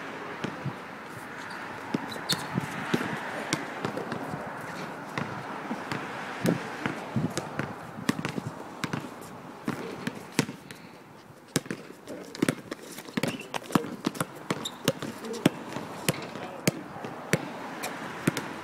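Basketball dribbled on an outdoor asphalt court: a long, uneven run of sharp bounces, coming thickest in the second half.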